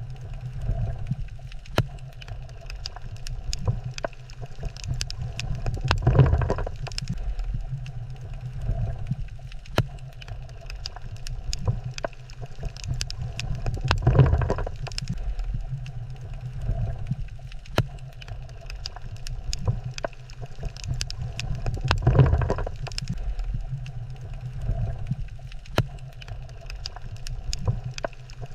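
Underwater coral reef ambience: a steady low rumble of moving water with a constant crackle of sharp clicks, swelling in a surge about every eight seconds.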